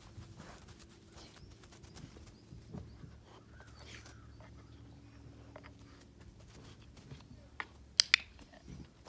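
A puppy nosing and moving around a small wooden box on grass, making soft scuffs and small clicks over a faint steady low hum. Near the end come a few sharp clicks, the loudest sounds.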